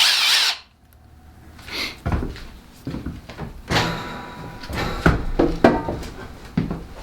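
A loud rushing noise cuts off under a second in, then after a short lull come scattered knocks, thunks and clatter of hard objects being handled and set down, like tools and a plastic kit case being moved about.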